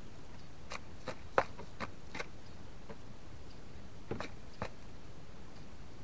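Common pheasant pecking at birdseed: a series of short, sharp taps in two irregular clusters, the loudest about a second and a half in.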